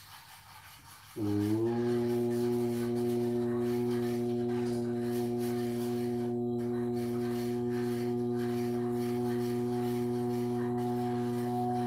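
A man's voice chanting one long, steady low note, starting about a second in with a slight upward bend and then held on a single breath after an inhale.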